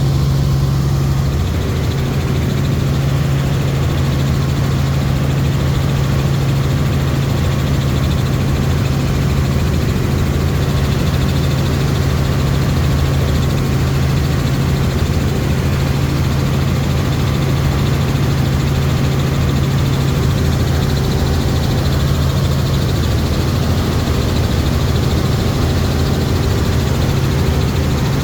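Helicopter in flight, its engine and rotor running steadily with a constant low hum.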